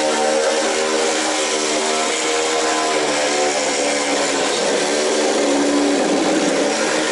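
Handheld power saw running steadily as it cuts crosswise through the hull of a homemade pedal-boat float.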